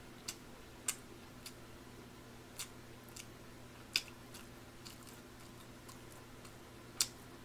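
Faint close-miked chewing with a few sharp mouth clicks spaced irregularly, over a low steady hum.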